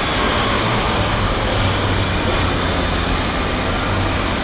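Steady factory-floor machinery noise: a constant low hum under an even hiss, with no distinct events.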